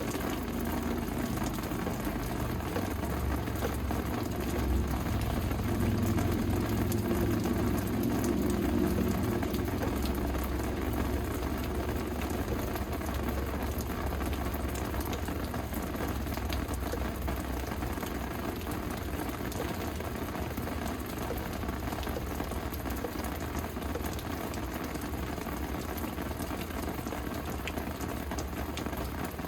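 Steady rain falling, an even hiss with scattered drop ticks. A low rumble swells and fades in the first third.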